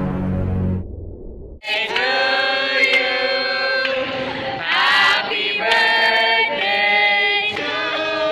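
Several voices singing together in chorus, holding long notes that change about once a second. They come in about a second and a half in, after a brief different sound cuts off.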